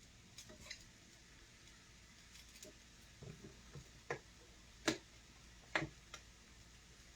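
A handful of faint, irregular clicks and taps in a quiet kitchen, about eight over several seconds, the sharpest two about a second apart past the middle.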